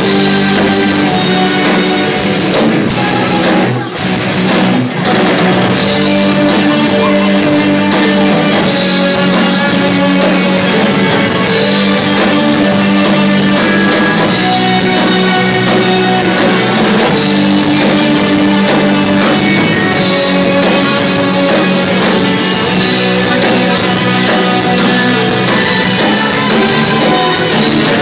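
Live rock band playing loudly over a PA: electric guitars strummed over a drum kit, continuous.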